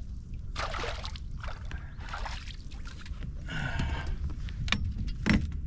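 A hooked bass splashing at the surface and swung up out of the water, with short bursts of water sloshing and dripping over a steady low rumble. A sharp knock comes near the end.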